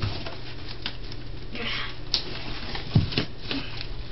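Hands handling a cardboard box: light taps and clicks on the cardboard, a brief rustle, and a soft thump about three seconds in.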